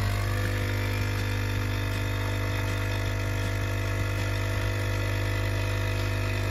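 Nespresso capsule machine's pump buzzing steadily as it brews coffee into a cup.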